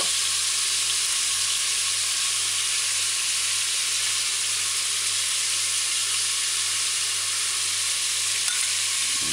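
Pork stew pieces, onion and scallion sizzling steadily in hot coconut oil in an aluminium pressure cooker pot, an even frying hiss.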